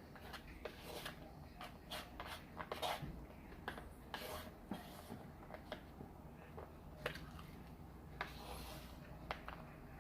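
Faint eating sounds: irregular small clicks and smacks of chewing, with a few short rustles.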